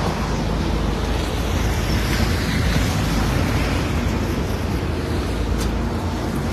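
Wind buffeting the microphone: a steady rushing noise with a low rumble underneath.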